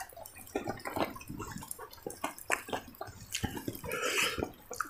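Soft, irregular wet clicks and smacks of eating by hand: fingers pressing and gathering sticky rice on a banana leaf. A slightly louder, longer smack comes about four seconds in.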